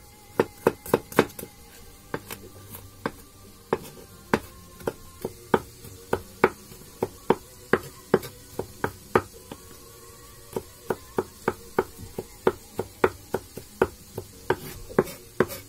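Chef's knife chopping garlic on a wooden cutting board: a long run of sharp, uneven taps, a few a second, broken by short pauses.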